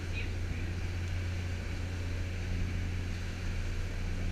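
Passenger boat's engines running steadily under way, a constant low drone with an even hiss over it.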